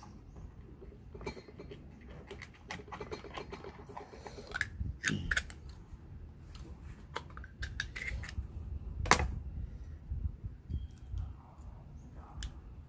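Oysters being shucked with a knife: irregular clicks, scrapes and knocks of the blade and shells, with one sharp clack about nine seconds in.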